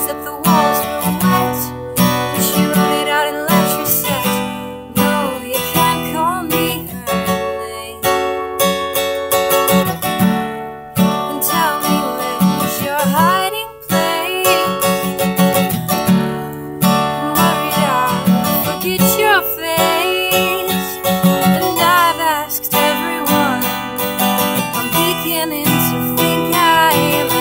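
Acoustic guitar strummed in a steady rhythm, with a woman's voice singing over it.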